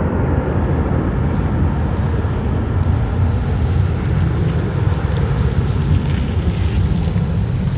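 Boeing 737 jet airliner engines at takeoff power, a steady low rumble, with wind buffeting the microphone.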